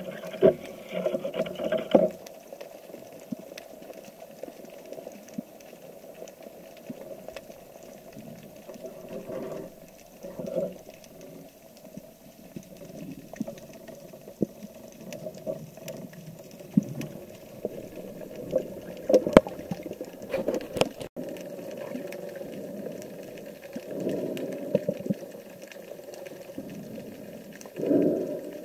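Underwater sound through a camera carried on a speargun: a steady, muffled water rush with scattered sharp clicks and knocks. There are louder, fuller bursts of water noise at the start and near the end.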